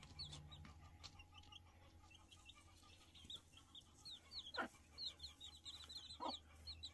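Chicks peeping faintly and repeatedly, many short high chirps that grow busier in the second half, with two louder, lower falling calls about halfway and near the end.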